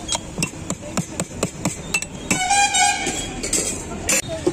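Steel spoon clinking and scraping against a stainless steel bowl in irregular strokes while mixing masala sweet corn. A horn honks for about a second midway through.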